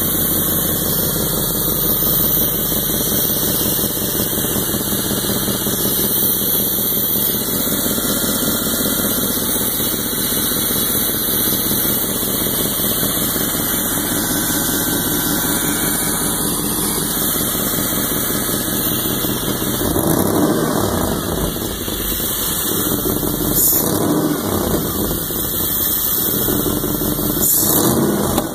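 A freshly installed 4.7-litre V8 in a Dodge Durango running steadily on its first run after the swap, heard close up at the front of the engine. In the last several seconds its pitch rises and falls a few times.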